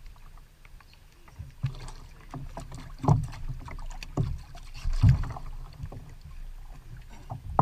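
Irregular knocks and thumps of gear and hulls on plastic fishing kayaks rafted side by side on the water, the loudest about three and five seconds in.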